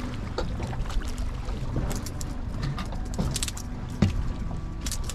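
Small boat rocking on choppy water: water slaps and splashes against the hull over a low steady rumble, with scattered short knocks and rattles.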